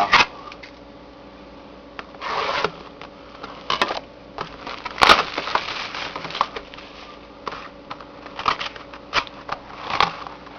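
Hands opening a sealed hockey card box: plastic wrap and cardboard crinkling and rustling in short bursts, with scattered clicks and knocks, the loudest a sharp knock about halfway through.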